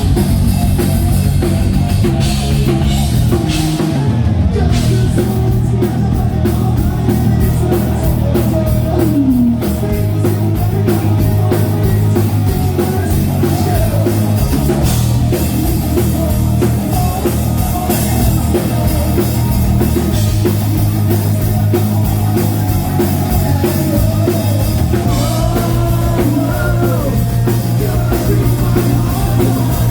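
Live hard rock band playing loud, steady music: drum kit, electric guitars and bass, with singing.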